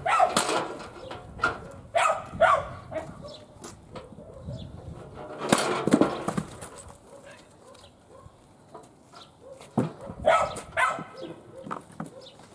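A dog barking in short bursts, with a few sharp knocks as a homemade spring-loaded lever log splitter's blade strikes and splits birch rounds.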